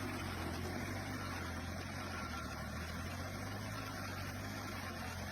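Stump grinder's engine running steadily: a constant low hum under an even rushing noise, with no change in pace.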